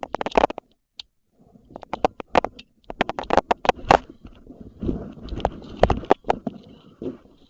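Irregular crunching footsteps on desert ground, a few steps a second, with rustling, heaviest in the middle stretch.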